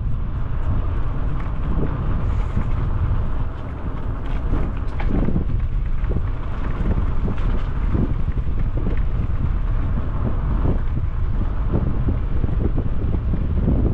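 Wind buffeting a helmet-mounted GoPro's microphone on a moving bicycle: a steady low rumble that eases briefly about three and a half seconds in.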